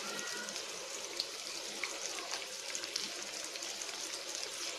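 Oil sizzling steadily on a dosa tawa under frying halves of boiled egg, with faint scattered crackles.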